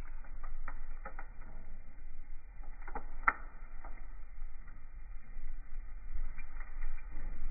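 Logs burning in an open wood stove: scattered crackles and pops, the loudest about three seconds in, over a low steady rumble. The sound is muffled, with the highs cut off.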